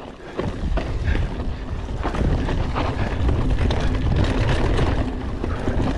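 Mountain bike riding down a rough trail: wind rumbling on the ride camera's microphone over the rattle and small knocks of the tyres and bike on the ground, picking up about half a second in.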